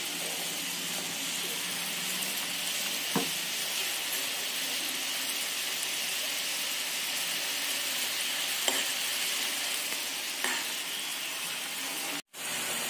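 Sugar-and-water syrup boiling hard in a pan, a steady sizzling hiss as it cooks down toward the sticky stage, with a few light clinks of a steel spoon against the pan. The sound cuts out for a moment near the end.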